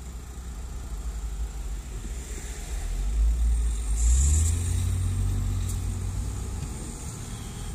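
Car engine and road noise heard from inside an open-top convertible, with wind on the microphone; the engine note rises and the rumble swells as the car speeds up about three to four seconds in, then runs on steadily and eases near the end.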